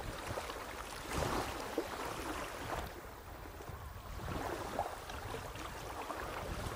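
River water lapping at the bank with wind on the microphone: a steady rush of noise that swells and eases, with no bell or voice.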